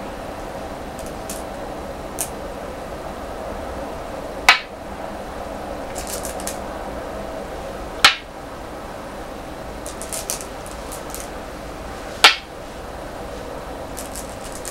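Go stones set down on a wooden go board: three sharp clacks about four seconds apart. Between them come softer clusters of clicking as stones are picked out of a bowl. A steady low hum runs underneath.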